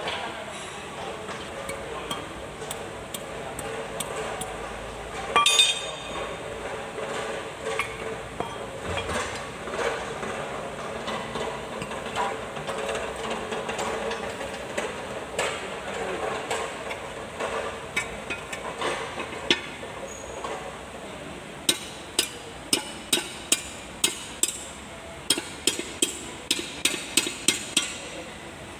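Steel axle parts clinking and knocking as they are handled. From about 22 seconds in comes a quick run of hammer blows on metal, two to three a second.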